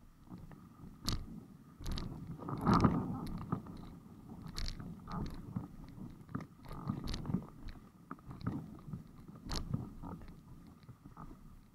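Irregular knocks, creaks and crunching scrapes from a windsurf board and rig under sail, carried through an action camera's waterproof housing, with the loudest bump about three seconds in.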